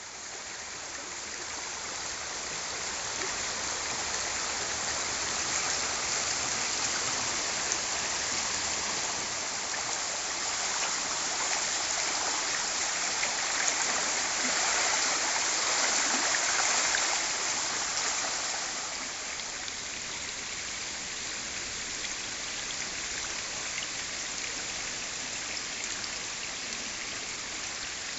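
Steady rush of water in a heavy storm downpour, the rain mixed with a swollen, flooding stream. It swells in over the first few seconds, is loudest in the middle and eases a little in the last third.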